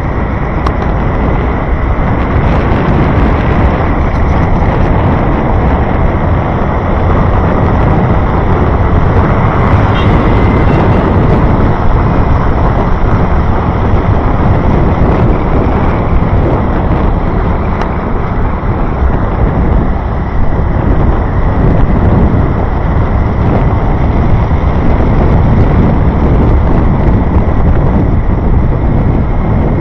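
Loud, steady rumbling wind on the microphone mixed with the noise of moving road traffic.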